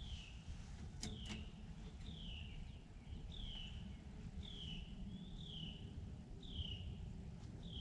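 A songbird repeating a short down-slurred whistle about once a second. Two sharp clicks come about a second in.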